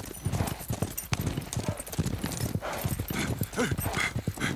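Many hooves galloping: a fast, dense clatter of hoofbeats from a group of running animals.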